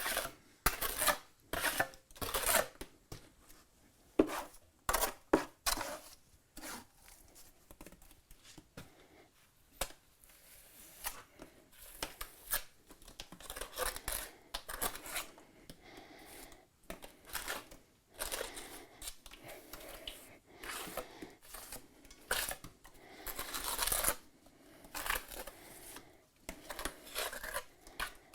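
A mason's trowel scraping and spreading mortar on a chimney corner, in a run of irregular short scrapes, some louder than others.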